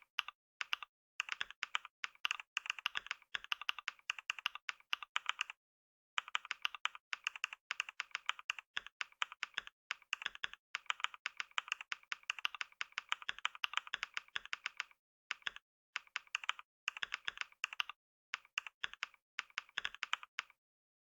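Fast typing on a computer keyboard: rapid runs of key clicks broken by short pauses, stopping about twenty seconds in.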